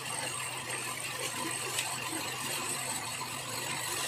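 Steady background hum with faint scraping and light clicks of a metal spoon stirring thick spiced yogurt in a plastic bowl.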